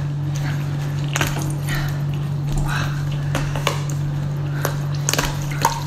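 Scattered light clicks and knocks of a large cooked lobster's hard shell being handled and shifted on a wooden board, over a steady low hum.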